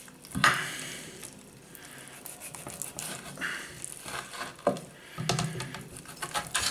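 Raw pork joint being handled and trimmed with a knife on a chopping board: irregular rustling, tearing and crinkling noises with a few soft knocks.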